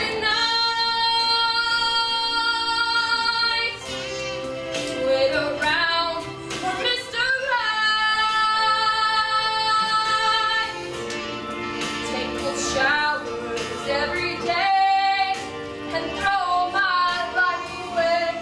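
A woman singing a slow ballad solo with accompaniment. She holds two long notes, one near the start and one about eight seconds in, with shorter phrases between them.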